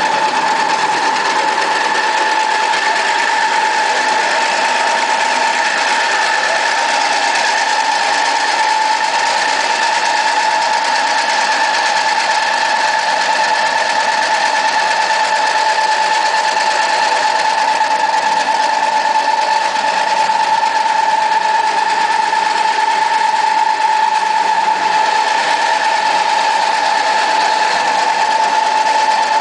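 Ring-die animal feed pellet mill running steadily under load while it produces pellets, with a constant high whine over a steady mechanical rush.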